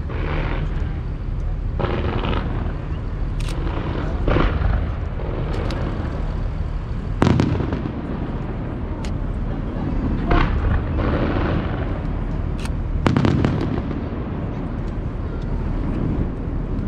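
Aerial fireworks heard from a distance: scattered sharp bangs and booms, about six of them, over a steady low rumble.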